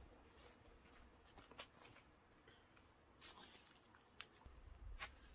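Near silence: room tone with a few faint clicks and light rustles.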